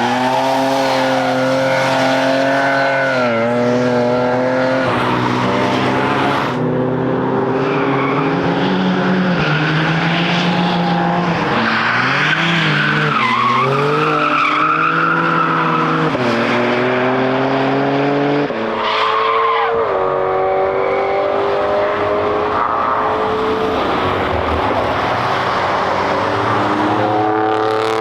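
Cars driven hard on a racetrack: engines running at high revs, pitch rising and falling with throttle and gear changes as several cars pass in turn, with bursts of tyre squeal in the middle.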